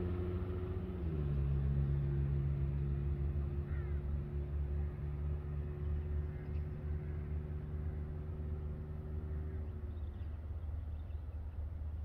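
A distant engine humming steadily over a low rumble, its pitch dropping slightly about a second in and the hum fading out near the end.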